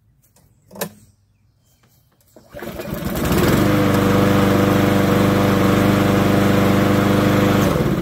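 A single short knock about a second in. Then a Briggs and Stratton single-cylinder push-mower engine catches on the first pull, runs steadily for about five seconds, and winds down as it is shut off near the end. It is running properly again after its sheared flywheel key was replaced.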